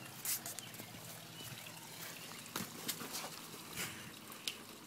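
Faint background hiss with a few soft, scattered taps and clicks.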